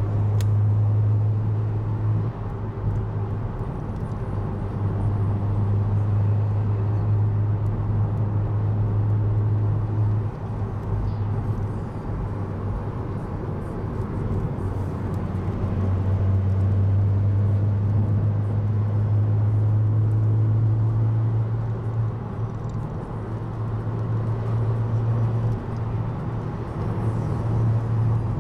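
Car engine and tyre noise heard from inside the cabin while cruising, a steady low engine drone over road rumble. The drone fades for several seconds about ten seconds in and again shortly before the end.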